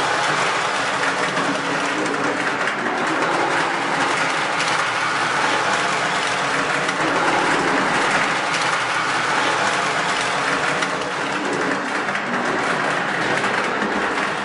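Lionel O-gauge model train rolling along FasTrack, a steady running noise with no break.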